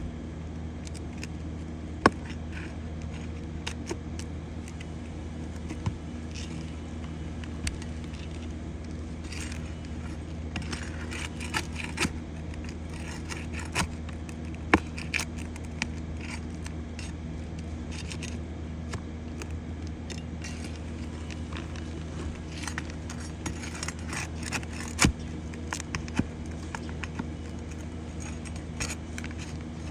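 Hand tools working on asphalt roof shingles: scattered metallic clinks, clicks and short scrapes over a steady low hum, as nails are pulled to free a shingle.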